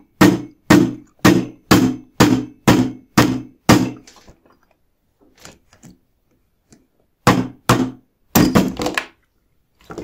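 Plastic mallet striking a vacuum cleaner motor's aluminium end bracket set on wooden blocks, hammering the worn-out, broken-up bearing free. Steady blows about two a second, then after a pause a few more knocks near the end.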